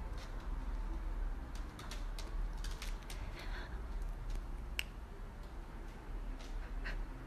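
A kitten's claws catching and scraping on a wall as it climbs: a scatter of light, irregular clicks and ticks over a low steady hum.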